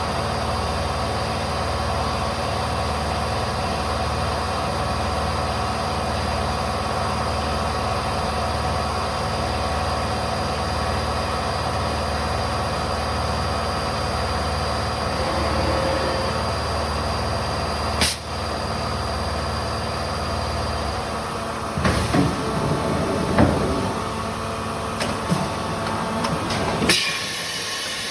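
A large machine running steadily: a low throb under a hum of several steady tones. A sharp click comes about two-thirds of the way through, then the low throb stops and a series of metallic knocks and clanks follows.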